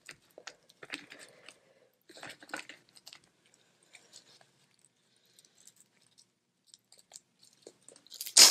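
Boiled crawfish being shelled and eaten close to the microphone: crackling and crunching of shells and chewing in short bursts, loudest near the end.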